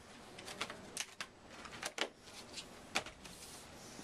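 Books and papers being handled: scattered light clicks and short paper rustles at irregular intervals, the sharpest about one and three seconds in.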